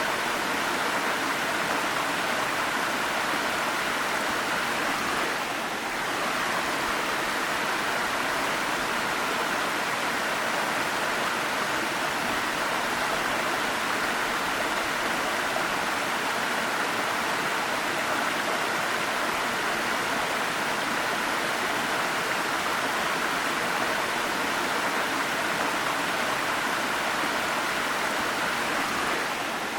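Waterfall: steady rushing and splashing of falling water, with a brief slight dip about six seconds in.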